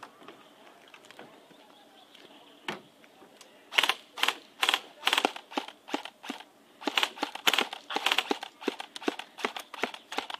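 Airsoft electric guns firing: after a quiet start, a run of sharp clacking short bursts and single shots, coming about two to three a second toward the end.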